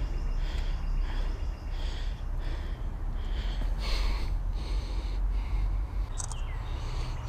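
Wind rumbling on the microphone, with breathing close by in short puffs. There is a brief sharp click about six seconds in.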